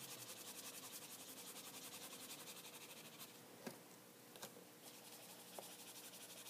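Faint rubbing of a Copic marker's nib on paper in quick, even strokes. The strokes pause about halfway for a few light ticks, then start again near the end.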